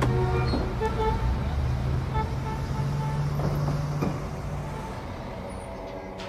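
Street traffic with a vehicle engine running as a steady low hum. It fades away after about five seconds.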